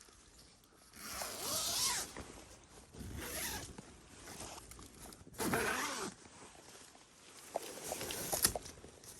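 A zipper pulled open and closed in four separate rasping strokes, with a few light clicks near the end.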